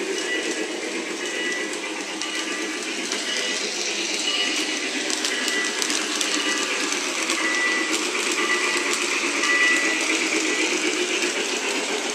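Lionel O-gauge Junior Mikado 2-8-2 model steam locomotive running on three-rail track: its electric motor and wheels on the rails mixed with the steam sound effects from its RailSounds speaker, at a steady level.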